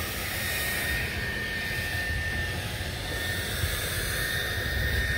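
Electric floor sander running steadily, sanding mahogany deck boards with coarse 24-grit paper: a constant rushing drone with a thin high whine over it.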